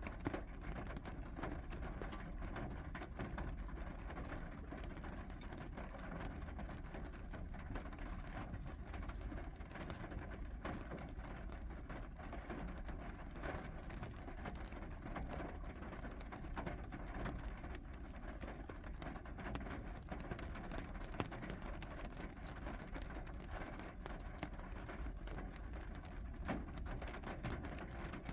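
Steady rain falling, with many small drop ticks scattered through an even hiss.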